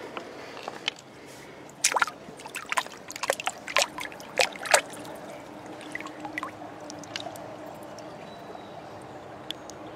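Shallow stream water trickling steadily over rocks. From about two to five seconds in, a hand splashes and sloshes in the water among the stones, giving a quick run of sharp splashes and clicks.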